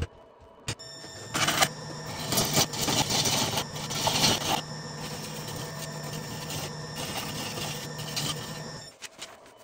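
Wood lathe spinning a heavy burl-and-resin blank with a steady hum while a gouge cuts its edge to true it up. The cuts come as loud scraping bursts in the first half, then settle into a steadier, quieter cutting sound.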